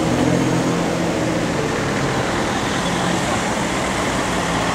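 Ferrari 599 GTB Fiorano's V12 engine running at low revs as the car creeps along in slow traffic, over general street traffic noise.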